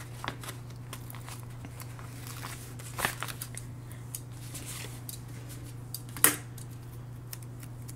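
Paper rustling and light clicks from a sheet of planner stickers being handled and stickers peeled, with a sharper tap about six seconds in, over a steady low hum.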